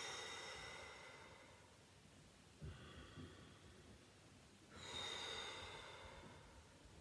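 A woman's soft, slow exhalations. One fades out over the first two seconds and another starts about five seconds in, with a faint intake of breath between them.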